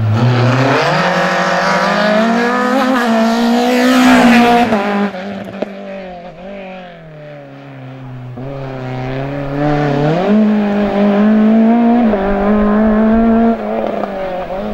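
Race car engine revving hard through a cone slalom: it climbs in pitch for about four seconds, lifts off sharply about five seconds in, then revs up again about ten seconds in and holds high before easing off near the end.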